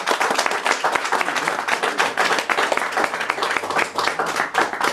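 A group of people applauding: many hands clapping steadily.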